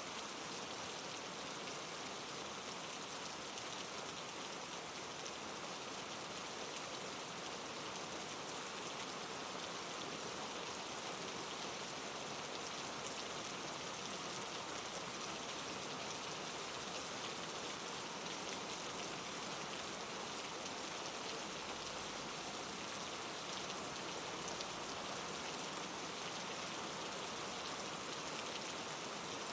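Steady rainfall, an even hiss of rain falling on a surface with no breaks or changes.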